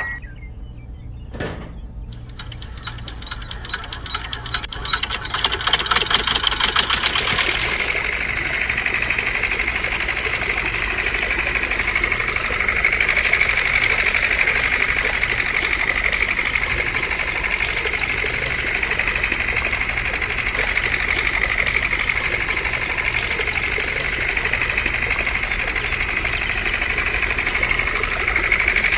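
Small motor of a miniature model engine starting with a click, then ticking faster and faster for several seconds until it runs as a steady fast whir, driving a belt-driven toy water pump.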